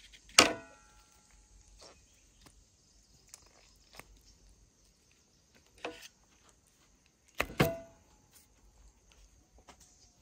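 Kitchenware knocked and set down during food preparation: three sharp clatters, the first and last ringing briefly, with light taps between them over a steady faint high hiss.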